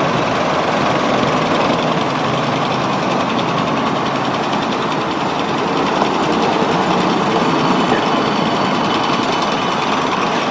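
An LM-99 tram rolling past, a steady rush of steel wheels on the rails and running gear.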